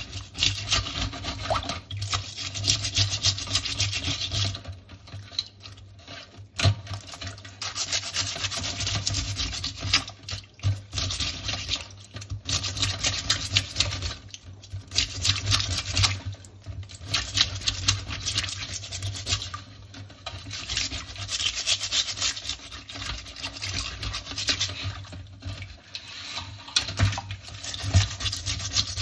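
A tile grout brush scrubbing the shell of a blue swimmer crab in shallow water. The brushing comes in quick back-and-forth strokes, in bouts of a few seconds with short pauses between them.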